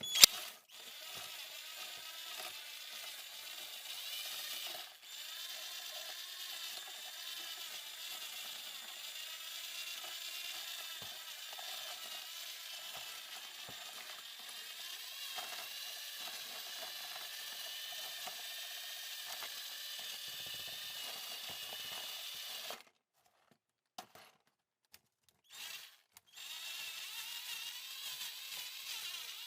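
Electric drill running steadily, its motor whine wavering slightly, as it is used to scrub rust off tools. It cuts out about 23 seconds in, gives a couple of short bursts, then runs again near the end.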